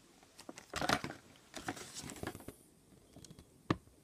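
Folded paper checklist leaflet being handled and unfolded, crinkling in clusters for the first couple of seconds, then one sharp tap near the end.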